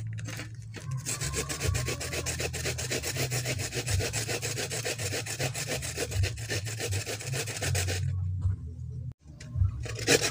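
Galangal root being grated on a metal hand grater: rapid, even scraping strokes, broken by a pause of about a second near the end before the grating starts again.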